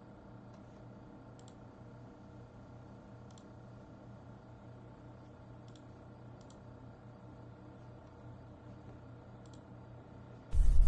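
Faint steady electrical hum with a scattered handful of sharp clicks from a computer mouse or keyboard. A loud sound cuts in abruptly near the end.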